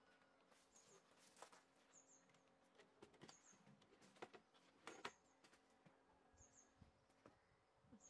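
Near silence: faint clicks and rustles of electrical wires being handled and twisted together, loudest a little after four and five seconds in. A faint high chirp repeats about every one and a half seconds.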